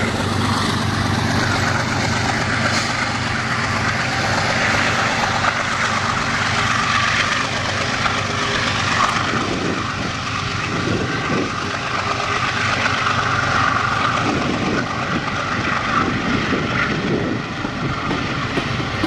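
Diesel-electric freight locomotives, a GE ES44AC among them, running under power as they slowly pull a long intermodal train up to speed, with the steady rumble of the cars rolling on the rails.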